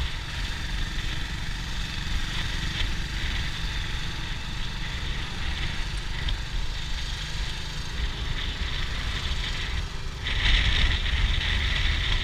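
Motorcycle engine running while riding, with wind rumble on the camera microphone. It grows louder about ten seconds in.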